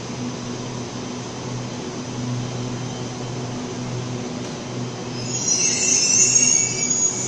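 Sydney Trains Waratah (A set) double-deck electric train rolling into the platform and slowing, with a steady low hum. About five seconds in, a loud high-pitched squeal sets in as it comes to a stop.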